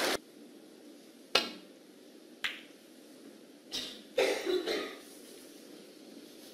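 Snooker balls clicking during a shot: two sharp clicks about a second apart, then a brief cluster of knocks a little after four seconds in, as the cue ball runs into a red.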